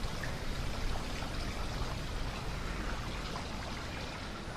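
Steady background hiss with no distinct event.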